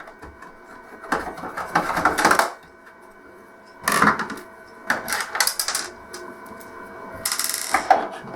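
A screwdriver backing out the plastic back-cover screws of an LCD TV: several bursts of clicking, scraping and small clattering, with short pauses between them.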